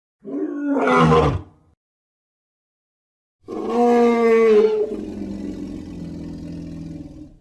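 Lion roaring twice, with dead silence between: a short call of about a second that drops in pitch at its end, then about three and a half seconds in a longer call that trails off into a low, steady rumbling growl.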